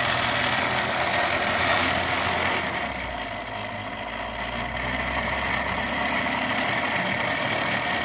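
3D-printed rotor of a hall-sensor-driven pulse motor spinning, making a loud, continuous rattling racket with a steady whine over it; about three seconds in it eases slightly and a low hum comes up. The racket comes from the 304 stainless shaft tip running against the aluminum backing plate, as the builder later finds.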